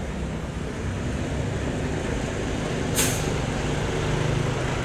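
Engine of a parked tour coach idling steadily, with one short hiss of released air about three seconds in.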